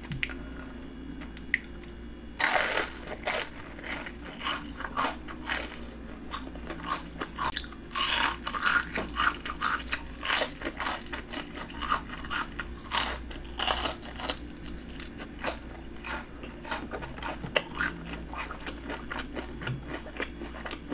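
Close-miked crunching and chewing of a breaded fried shrimp: crisp, crackling bites that come in clusters, loudest about three, eight and thirteen seconds in, with softer chewing between.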